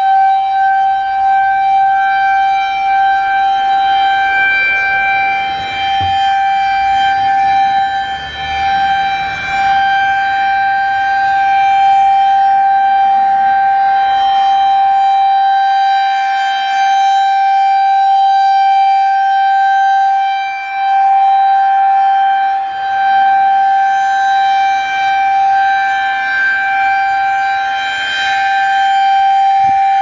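Federal Signal 2001-SRNB rotating outdoor warning siren sounding a steady alert tone for a routine test: one unchanging pitch that swells and fades as the rotating horn sweeps toward and away.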